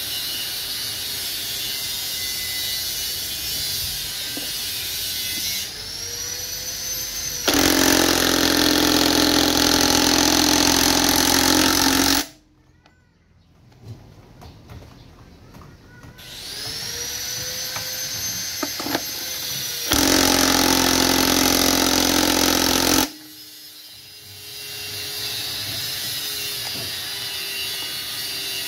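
DeWalt cordless impact wrench on a transmission shaft nut: twice it winds up with a rising whine, then hammers loudly for several seconds and stops abruptly, with a quiet pause of a few seconds between the two runs. A steady, quieter whirring fills the start and the end.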